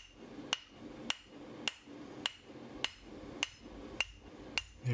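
Hand hammer striking the upturned end of a red-hot steel hardy cut-off blank on an anvil, about two even blows a second, each with a short metallic ring. The smith is dressing out the fish lipping (the cupped, spread-out rim) on the end of the bar.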